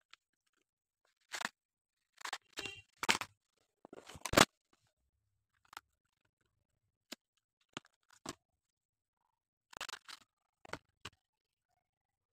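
Hands handling stationery packaging: plastic wrappers crinkling and cardboard boxes tapped and set down, in short separate rustles and clicks with silence between. A cluster comes about two to four seconds in, ending in the loudest snap, then scattered ticks and another short cluster about ten seconds in.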